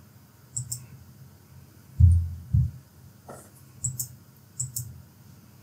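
Sparse clicks from a computer keyboard and mouse as a short password is typed: a few short paired clicks, with two dull low thumps about two seconds in.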